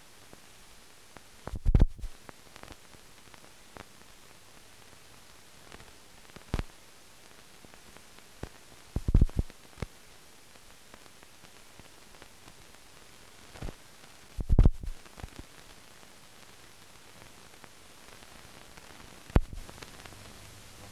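Blank soundtrack of a silent newsreel film: a steady hiss with pops and crackles every few seconds. The loudest clusters of pops come about two, nine and fifteen seconds in.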